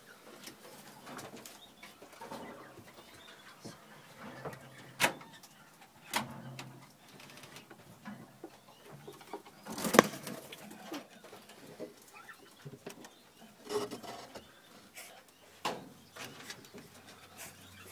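Caged birds in a bird room making soft calls, with scattered sharp clicks and taps. The loudest click comes about ten seconds in.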